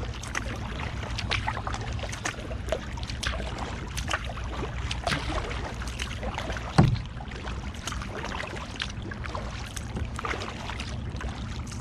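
Kayak paddle dipping and splashing as it strokes a solo canoe along, with water dripping and lapping at the hull over a steady low rumble of wind and water. A single louder knock comes about seven seconds in.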